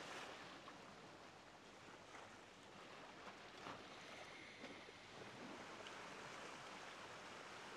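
Faint ocean waves: a steady, even wash of surf.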